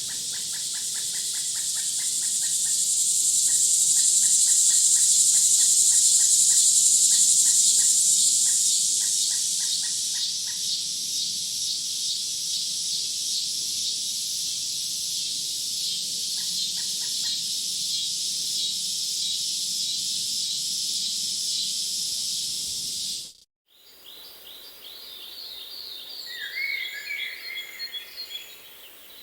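Dense, steady high-pitched chorus of fast pulsing chirps, swelling a few seconds in. It stops at a sudden cut, after which separate bird chirps and quick gliding calls follow.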